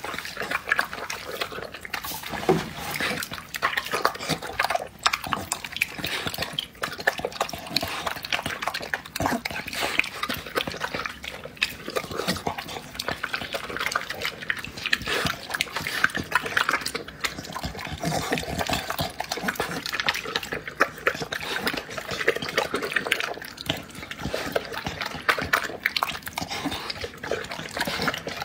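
A dog eating moist chopped meat and egg from a glass bowl: continuous wet chewing, smacking and slurping.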